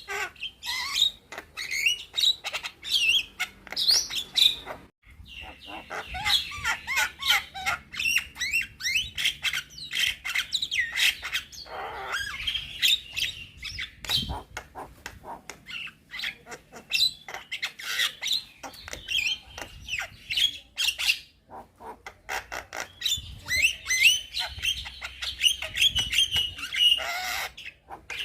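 Young Javan myna singing almost without pause: a fast, chattering run of whistles, squawks and clicks, with a brief break about five seconds in and another about three-quarters of the way through.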